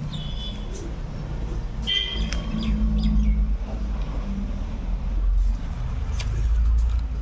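A steady low rumble with a droning hum runs underneath. Short high chirps sound near the start and again about two seconds in.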